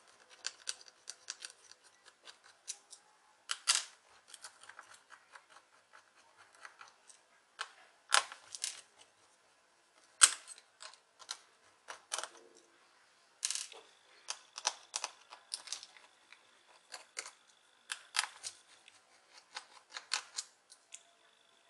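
Small screwdriver and hands working on a laptop's opened plastic case to free its speakers: irregular clicks, taps and short scrapes of plastic and small metal parts, a few louder knocks among them.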